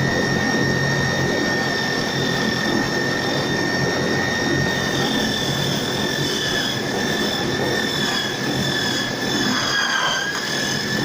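Electric drill motor running steadily at high speed, driving a homemade drill-powered lathe, with a constant high whine; the pitch dips briefly about ten seconds in, as the motor takes a load.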